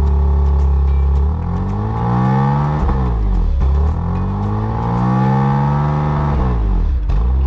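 BMW M2 CS's twin-turbo 3.0-litre straight-six (S55), heard from behind at the exhaust, idling and then revved twice. Each rev climbs and falls back over about two seconds before the engine settles to idle near the end. The revs are kept moderate because the nearly new engine is still being run in.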